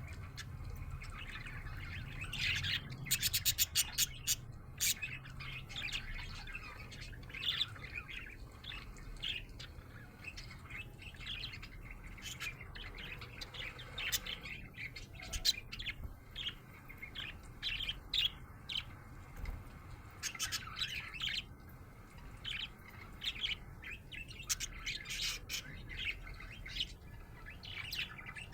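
Budgerigar chirping: many short chirps scattered throughout, with a fast rattling trill about three to four seconds in that is the loudest part.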